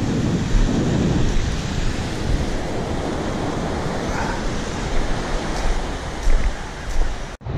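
Wind buffeting the microphone over the steady wash of surf on a shingle beach. The sound cuts out for a moment near the end.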